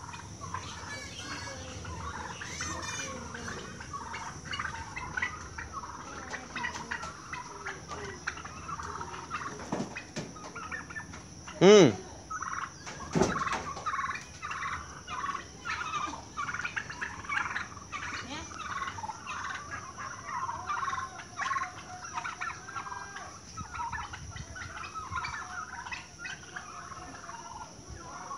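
A flock of domestic turkeys calling, many short overlapping calls. One loud call stands out about twelve seconds in, and another follows about a second and a half later.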